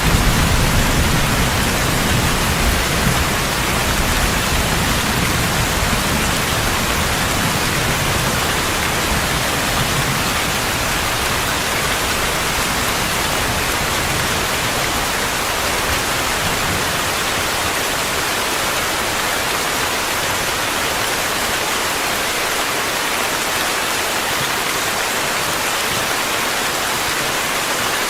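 Steady heavy rain, an even hiss. A low rumble of distant thunder dies away over the first several seconds.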